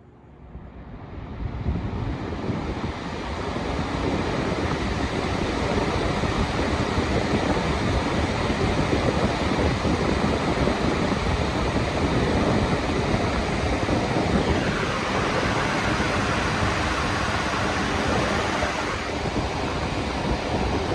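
Mainstays 20-inch box fan starting up on high: the rush of air builds over the first few seconds, then holds as a loud, steady whoosh. The banana-shaped blades make it loud.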